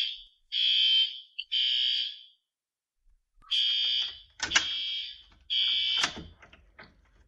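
Fire alarm horn sounding in the temporal-three evacuation pattern: three high-pitched blasts of about half a second each, a pause of about a second, then three more. This is a commercial fire alarm system set off by a manual pull station during a test. Several sharp knocks and clicks sound over the second group of blasts.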